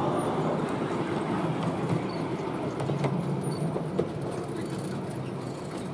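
Miniature railway passenger train rolling away along the track, the rumble of its carriage wheels on the rails fading as it leaves, with a few light clicks.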